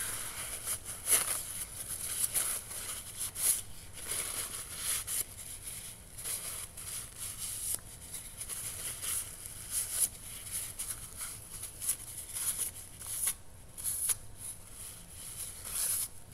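Paper towel rubbing and crinkling against a knife blade in short, irregular wiping strokes, clearing baking-soda paste off the scrubbed blade.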